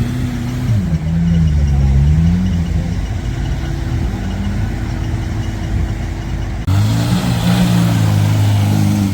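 Off-road 4x4 engines running and revving, the pitch rising and falling. About two-thirds of the way in, the sound switches abruptly to another, brighter-sounding engine revving up and down.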